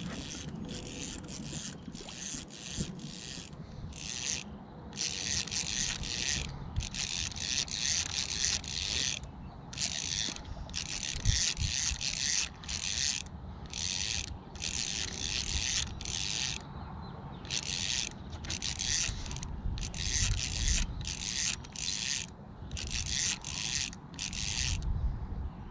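Spinning reel being cranked in repeated short spells with brief pauses between them as a lure is retrieved, its gears running close to the microphone.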